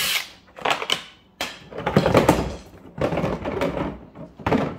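Hard plastic Milwaukee Packout crate being shifted and handled on a stack of Packout boxes: a series of knocks, scrapes and thunks of plastic on plastic, four separate bouts. A cordless drill's whine cuts off right at the start.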